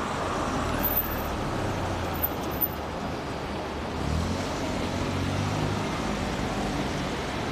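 Road traffic: a motor vehicle's engine running close by over steady street noise, its hum growing louder about four seconds in.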